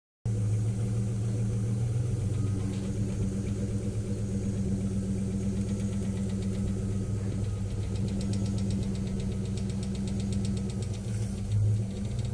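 GAZ Volga's V8 engine idling steadily with a fast, even ticking knock, the strange knocking in the engine that the owner cannot yet explain. The ticking stands out most clearly from about eight seconds in.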